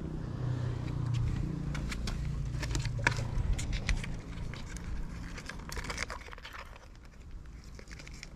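Close handling noise: a scatter of small clicks and crinkles as a caught goby and a wooden measuring box are handled near the microphone, over a low rumble that fades out about halfway through.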